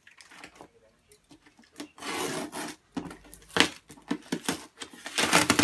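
A cardboard parcel being handled and cut open with scissors: cardboard rubbing and scraping, a sharp snip or click about halfway through followed by several smaller ones, and the loudest scrape or tear just before the end.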